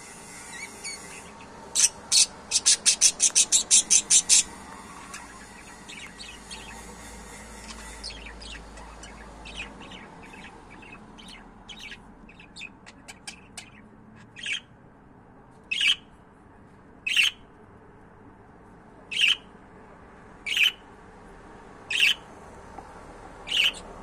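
Budgerigars chirping: a fast run of about a dozen sharp high chirps, then softer twittering, then single loud chirps every second or two.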